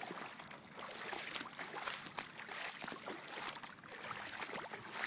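Irregular soft splashes and swishes of steps through waterlogged grass and shallow floodwater, over a steady hiss.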